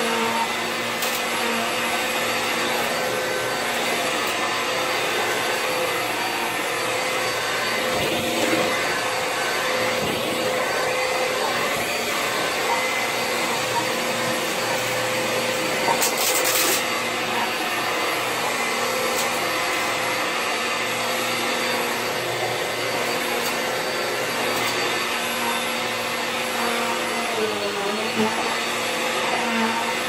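Bissell PowerForce Helix bagless upright vacuum cleaner, the 10-amp motor version, running steadily while vacuuming carpet, a constant motor hum with a steady whine. A brief louder hiss comes about halfway through.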